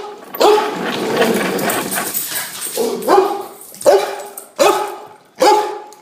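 Dog barking repeatedly at a vacuum cleaner, roughly a bark a second, with a longer rough, noisy stretch of barking from about half a second to nearly three seconds in.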